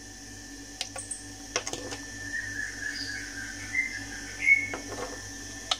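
Powered Ealsem ES-22S horn speaker idling between playbacks: a steady electrical hum with a faint wavering high whistle. A few sharp clicks come through it as well.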